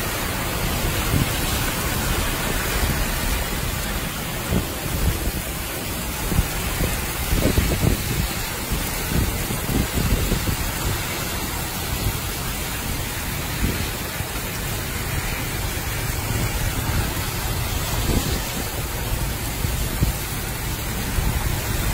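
Heavy rain pouring down steadily on a flooded road, with brief low rumbles every few seconds.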